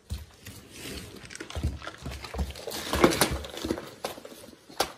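A plastic parts-organizer case being picked up and handled, with irregular knocks and rattles of the case and its contents, thickest around the middle, and one sharp click near the end.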